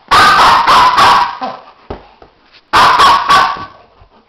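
Small dog, a Pomeranian, barking loudly close to the microphone: a quick run of about three barks, then a pause, then another run of about three barks.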